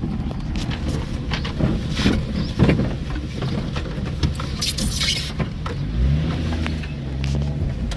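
Vehicle driving on a rough, bumpy dirt farm road, with a low rumble and frequent knocks and rattles from the jolts. There is a brief hiss about five seconds in, and the engine rises in pitch and then holds from about six seconds.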